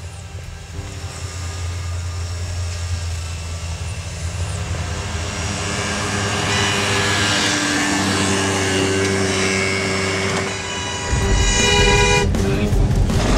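A motor vehicle running, with sustained horn-like tones sounding over it and growing louder. About 11 seconds in a louder, rougher engine rumble comes in.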